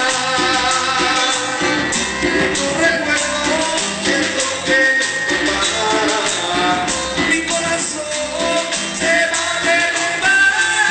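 Live Latin dance band playing a song: lead singing over drums, percussion and guitar, with a steady dance beat.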